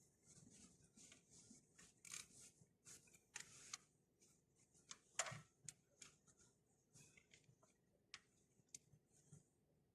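Near silence with faint, scattered clicks and short rustles, the loudest a little after five seconds in.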